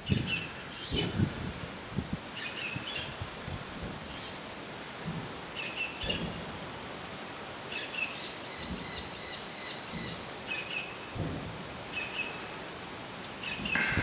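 Steady rain hiss with a few deep booms several seconds apart, a strange rhythmic booming that the recorder insists is not thunder. A bird chirps repeatedly over it.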